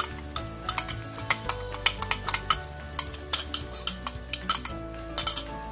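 A metal spoon scraping and tapping against a glass bowl in irregular clicks as coconut masala paste is knocked out into a stainless steel pot, with the onion-tomato masala sizzling lightly underneath.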